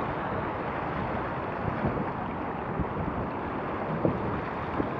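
Wind buffeting the action camera's microphone over the steady rush and slap of water along a Laser Radial dinghy's hull under sail in choppy water, with a few brief thumps.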